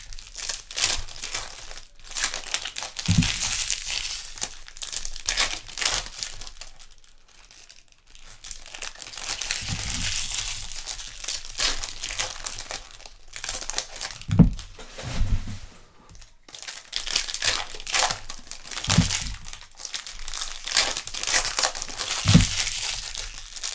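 Trading-card pack wrappers being torn open and crinkled while cards are handled, an irregular rustling with a few dull bumps.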